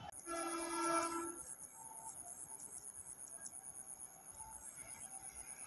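Faint insect chirping: a fast, even, high-pitched pulsing of several beats a second. In the first second or so a steady pitched tone sounds, then stops.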